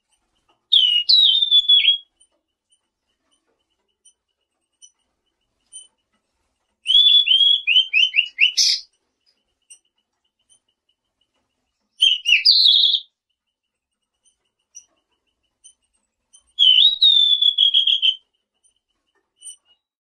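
Songbird known in Indonesian as 'selendang biru' singing: four short, high whistled phrases a few seconds apart, each a quick run of sliding notes.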